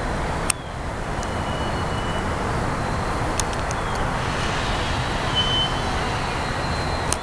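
Steady rushing background noise with a few short clicks.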